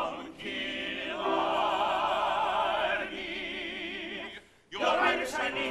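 Stage-musical singing: voices holding long notes with vibrato, in harmony. About four and a half seconds in it breaks off for a moment and gives way to a louder passage with the orchestra.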